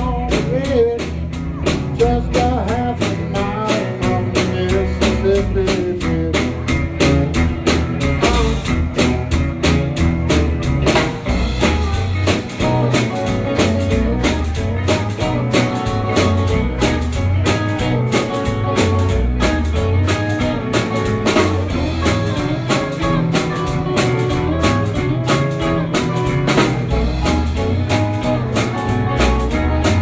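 Live band playing an instrumental break in a rock and roll song: electric guitars over a drum kit keeping a steady beat.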